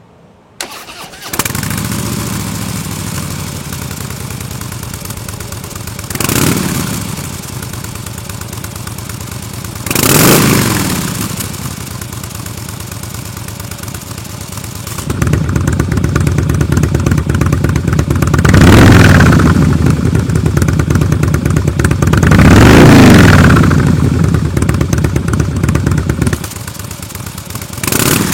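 Harley-Davidson Softail Slim S V-twin with a Kesstech ESM3 flap-controlled exhaust, starting about a second in, then idling with two short throttle blips. About halfway through it turns louder and stays so, with two longer revs, then drops back to idle and gives one last blip near the end.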